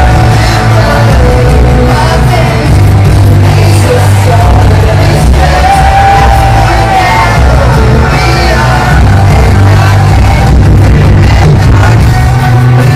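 Live rock band playing loud through a large hall's sound system, with a sung lead vocal over heavy bass, and the crowd singing and yelling along.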